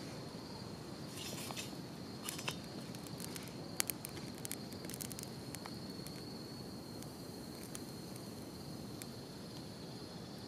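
Wood crackling and popping as it burns in a TOAKS titanium wood-burning stove, with sharp pops thickest in the first half over a steady low rush. A steady high insect trill runs beneath.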